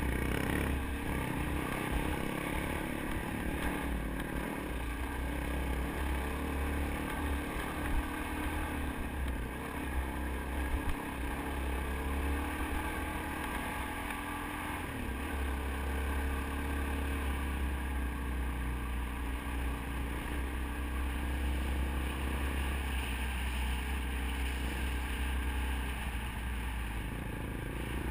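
Dirt bike engine running while riding over a gravel road, its pitch rising and falling with the throttle, with heavy wind rumble on the microphone and a few knocks from the rough surface.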